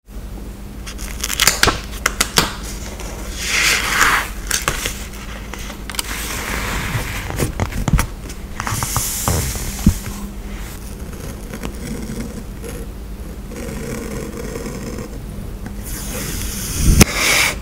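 Paper stickers and journal pages handled close to the microphone: rustling and scraping, with scattered sharp taps and clicks. The loudest rustle comes near the end.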